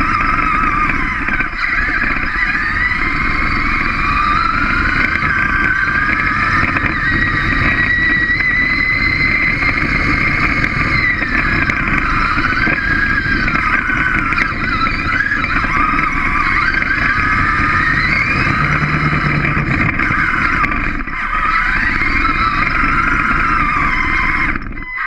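A small robot's electric drive motors and gears whining, the pitch gliding up and down as it speeds up, slows and turns, over a steady low rumble. The sound dips briefly near the end.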